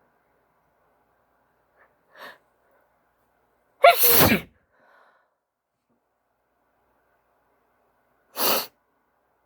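A woman's allergy sneeze, one loud sneeze about four seconds in whose pitch falls away, set off by a pollen-itchy nose and preceded by a short intake of breath. A shorter, noisy breath follows near the end.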